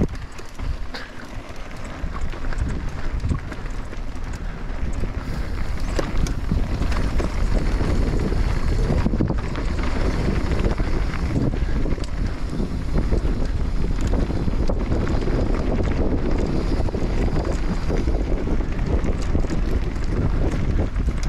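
Heavy wind buffeting the microphone with a dense low rumble, growing louder a few seconds in and then holding steady.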